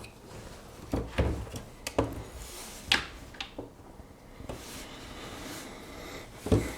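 Scattered clicks and knocks of Swiss Army knives being handled, about half a dozen spread over several seconds, the loudest near the end.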